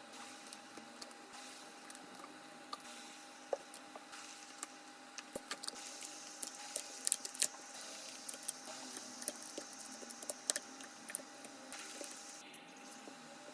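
Small, irregular clicks, ticks and scrapes of hand tools working on a smartphone during a back-glass repair, busiest in the middle, over a faint steady hum.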